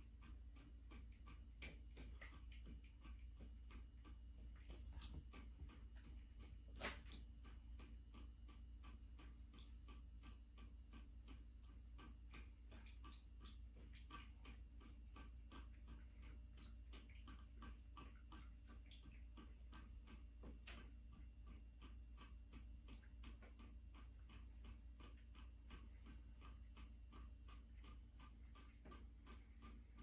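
Cat lapping water from a running bathtub faucet: a quick, steady run of faint wet clicks, with a couple of louder clicks about a fifth of the way in.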